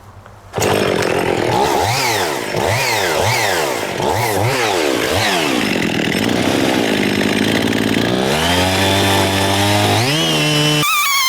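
Chainsaw cutting a tree stump close to the ground, starting abruptly about half a second in. The engine revs up and down over and over as it cuts, then holds a steadier, higher speed near the end.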